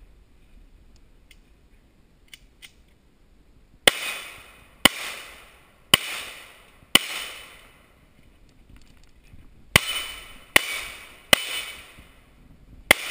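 Pistol firing eight shots in two strings of four, roughly a second apart, with a pause of nearly three seconds between the strings. Each shot trails off in a short ringing echo.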